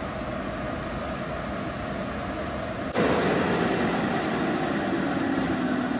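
Touchless car wash dryer blowers running overhead, a steady rush of air; about halfway through it jumps suddenly louder and stays so.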